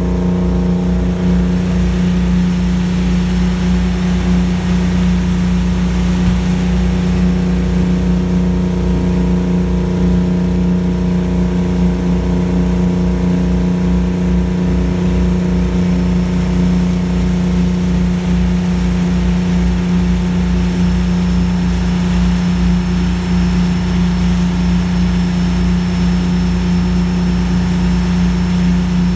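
Boat engine running steadily under way, a constant hum with no change in speed, with the wake's water rushing and hissing alongside.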